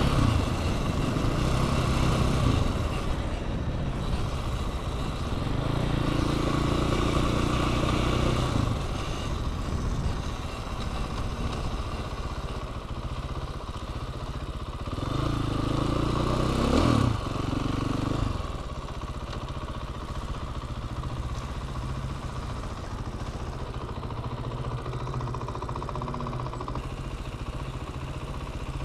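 Dirt bike engine running as the bike is ridden. The revs rise and fall twice, about six seconds in and again around fifteen seconds in, with a steadier low running note in between.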